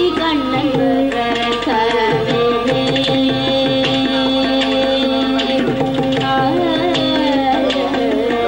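Live Carnatic ensemble music: a held melodic line with sliding ornaments from violin and voice, over continuous mridangam and ghatam strokes.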